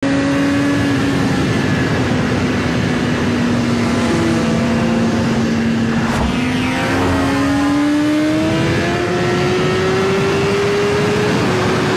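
Synthesized engine-like vehicle sound effect: a loud steady drone over rushing noise. Its pitch sags slightly, then climbs slowly through the second half, with a short click about six seconds in.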